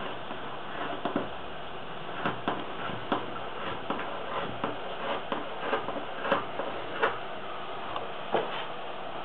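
Scissors snipping through a knitted wool sweater sleeve: a series of irregular, short snips, a few louder ones near the end, over a steady hiss.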